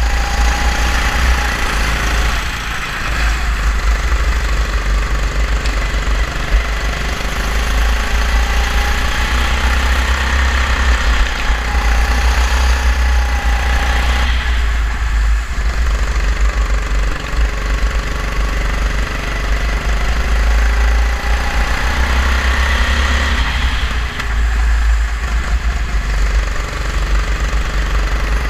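Go-kart engine running hard under an onboard microphone, revs climbing on the straights and dropping back into corners about three seconds in, around the middle and about three-quarters through. A heavy low rumble of wind and vibration sits under the engine.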